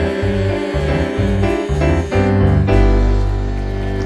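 Instrumental close of a gospel-style Christmas song: piano and keyboard backing over short repeated bass notes, which settle about two and a half seconds in into a held final chord.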